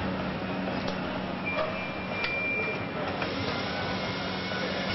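Car assembly plant ambience: a steady machinery hum with scattered clicks and indistinct voices, and a thin high tone lasting about a second partway through.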